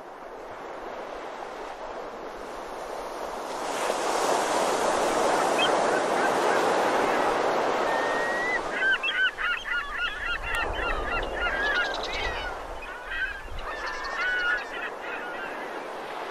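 Surf washing on a beach, growing louder a few seconds in, then a flock of birds calling over it for several seconds with many short, wavering calls.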